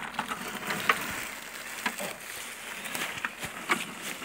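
A few scattered sharp clicks and knocks over a steady outdoor hiss.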